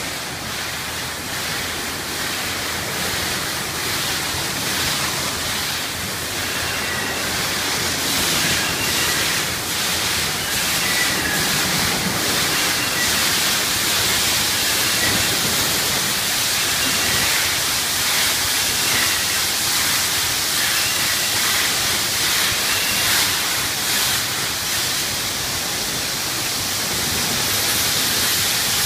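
Conveyor car wash tunnel running: the steady hiss and splash of water sprays and foam waterfall curtains pouring over a vehicle, with the tunnel's wash brushes turning.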